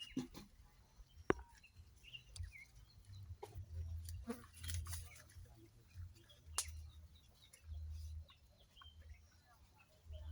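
Faint farmyard ambience: scattered bird chirps and poultry sounds over an intermittent low rumble, with a few sharp clicks.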